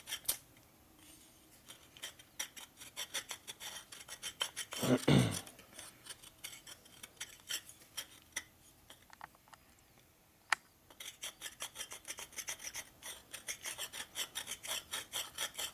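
Hand file scraping a Harley 103 big-bore piston's ring groove in short quick strokes, opening up clearance for a ring made tight by a land collapsed from detonation. The strokes pause briefly near the start and again about ten seconds in, with a sharp click just before they resume. A brief, louder low sound comes about five seconds in.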